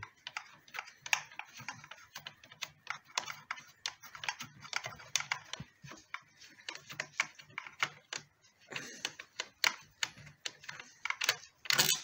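Irregular light clicks and taps of a hand working at a fuel rail and injectors on a plastic intake manifold, with a louder clatter near the end.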